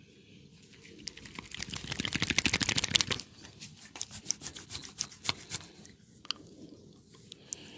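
Barber's hands working fast over the client's head and neck in a massage. A rapid flurry of crisp pats and clicks swells to its loudest about two to three seconds in, stops abruptly, then breaks into scattered single clicks that thin out.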